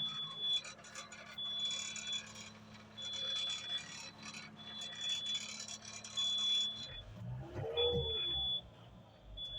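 Small Komatsu bulldozer's warning alarm beeping, one high steady-pitched beep about every second and a half, over a steady low engine hum. About seven seconds in, the hum gives way to low rumbling.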